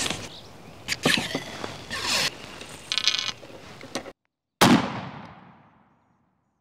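Knocks and clicks of a W.C. Scott & Son 14-gauge percussion double-barrel shotgun being loaded at the muzzle. Then, about four and a half seconds in, a single loud shotgun blast whose echo fades away over about a second and a half.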